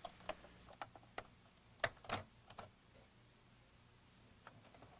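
Faint, sharp clicks and taps of a jeweler's screwdriver prying and releasing the plastic latch of a Macintosh Portable display assembly, about half a dozen in the first two and a half seconds, the loudest about two seconds in.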